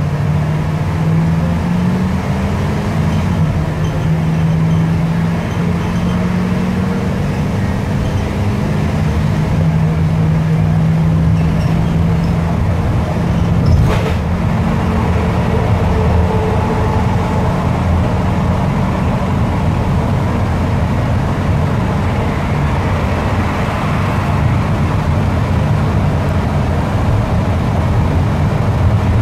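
Bus engine and road noise heard from inside the cabin while driving: a steady low drone whose pitch edges up about two seconds in. There is a single sharp knock about halfway through.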